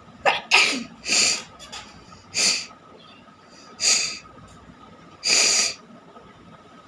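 A person forcing air hard out through the nose in about six short, noisy blasts, roughly a second or so apart.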